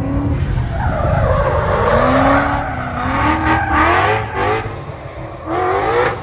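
Car engine revving hard in several rising sweeps, with tyre squeal: a burnout.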